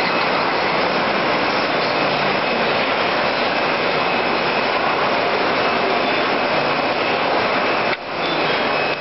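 Wohlenberg City 4000 perfect binding line running, its gathering stations giving a loud, steady, dense mechanical clatter and whir. The sound dips briefly about eight seconds in.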